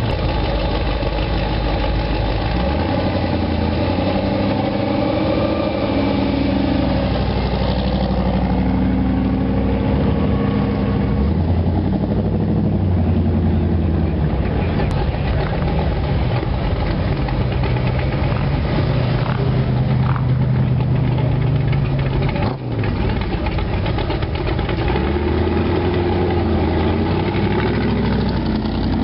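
Hot rod engines idling and running as cars drive slowly past. Steady low engine tones shift in pitch every few seconds as different engines come and go.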